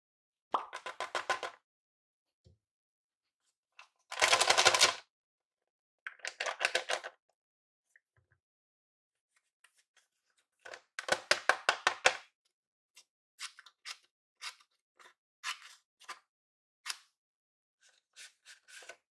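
Paper crinkling and rustling as a handmade paper blind bag is handled and opened and a paper cutout slid out. Four longer bursts of crackle come in the first twelve seconds, the loudest about four seconds in, then a string of shorter crackles, with silence between.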